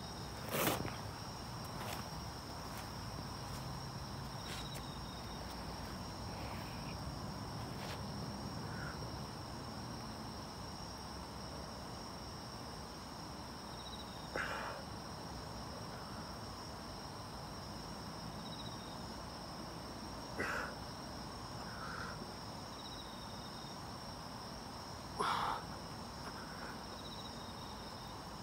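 Crickets chirping steadily in a night-time insect chorus. Four brief louder sounds break in: about a second in, near the middle, and twice towards the end.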